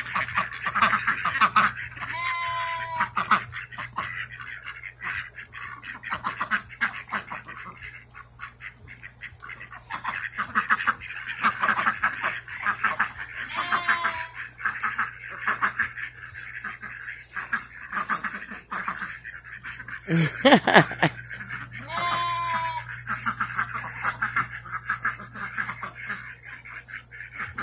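A mixed flock of domestic ducks quacking continuously in short, overlapping calls as they follow close at a person's feet. A longer, pitched call from another animal sounds several times, roughly every eight to ten seconds.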